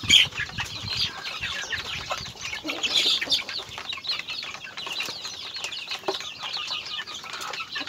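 A flock of native chickens pecking feed from a wooden trough, a rapid irregular tapping of beaks on wood, with scattered clucks.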